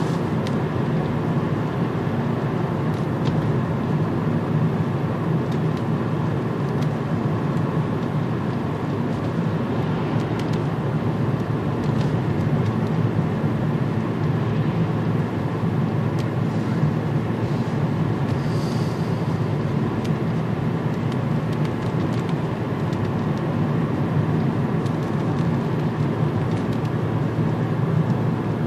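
Steady low rumble of road and engine noise inside a moving car's cabin, with no clear changes in speed or pitch.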